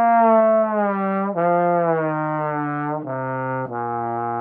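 Tenor trombone with an F attachment playing a one-octave B-flat major scale downward, slurred with the slide gliding between the notes so that the pitch smears down continuously. There are small bumps about 1.4, 3 and 3.7 seconds in, where the notes change partials.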